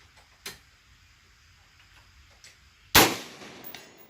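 A single 5.56 gunshot from a 10.5-inch-barrel AR-15 pistol about three seconds in, sharp and loud, with an echoing tail of about a second. A small click comes about half a second in.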